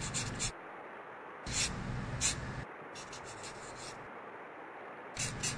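Pencil scratching across drawing paper in quick sketching strokes. The strokes come in about four short bursts with pauses between them.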